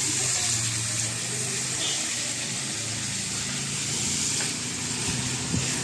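Fish steaks frying in oil on an iron griddle over a wood fire: a steady sizzle with a low hum underneath.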